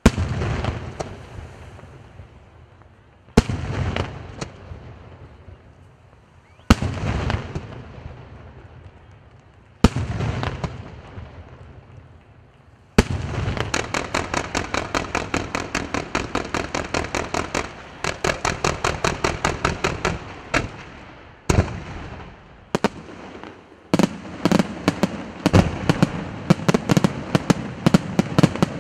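Aerial fireworks display: four single loud bangs about three seconds apart, each trailing off in a long rolling echo, then a fast volley of launches and bursts at about four a second. After a brief lull with two more single bangs, a dense, rapid string of bangs runs through the last few seconds.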